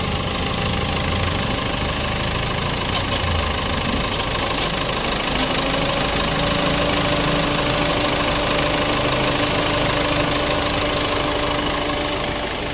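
Ford Aspire engine idling under the bonnet while the AC compressor runs, its clutch engaged and the system taking a refrigerant charge. A steady hum joins in about halfway through.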